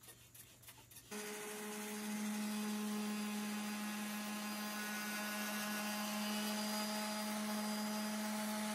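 DeWalt random orbital sander running on an olive wood board, a steady hum that comes in about a second in, sanding back the grain raised by a water spray.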